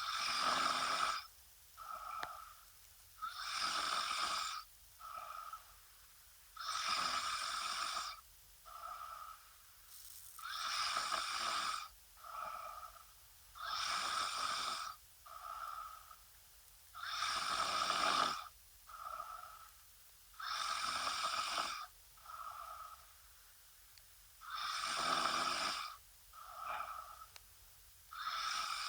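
A woman snoring in a steady rhythm: a loud snore about every three and a half seconds, with a shorter, softer snore between each pair.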